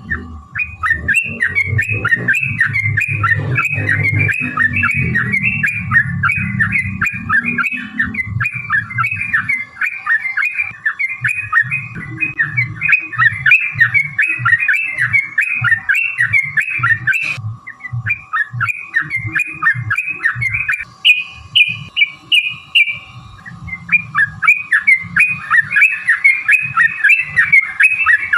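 Yellow-vented bulbul (trucukan) singing long, fast runs of chattering notes, the rolling 'ropel' song used as a lure to make other trucukan answer. It breaks off briefly about two-thirds of the way in, and the notes then go higher for a moment.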